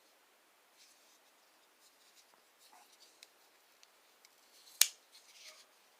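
Faint handling of a SOG Aegis AT folding pocket knife, small rustles and light metallic ticks, with one sharp click near the end followed by a brief scrape.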